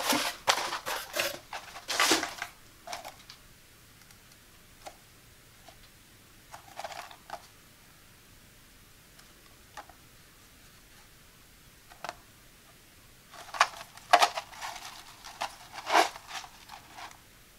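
Fingers handling cardboard packaging: a corrugated shipping box and a paperboard Band-Aid carton being lifted out, held and turned. The rustles and taps are busy near the start and again in the last few seconds, with single soft taps in between.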